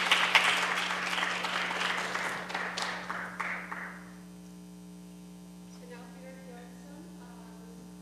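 Audience applauding, dying away about four seconds in, over a steady electrical hum.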